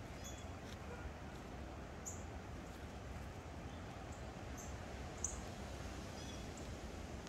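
Sparse, short high chirps of small birds, every second or two, over a steady low outdoor rumble.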